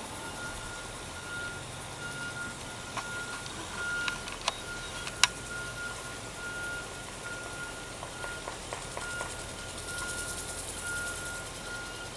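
A vehicle backup alarm sounding a steady run of evenly spaced high beeps, with a few sharp clicks or knocks partway through, the sharpest about five seconds in.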